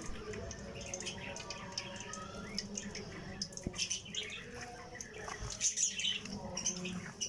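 Hand mixing damp, gram-flour-coated raw potato fingers in a bowl: soft rustling and small clicks as the sticks knock together, with faint high chirps in the background, clearest about six seconds in.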